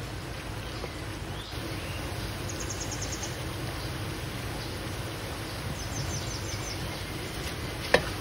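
Semolina halwa crackling faintly in hot ghee in a steel pan while a wooden spoon drags through it, over a steady low background noise. A single sharp click of the spoon against the pan near the end.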